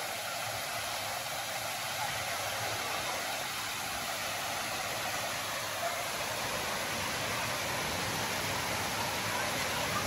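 Steady rush of water pouring over small stone cascades between spring-fed pools.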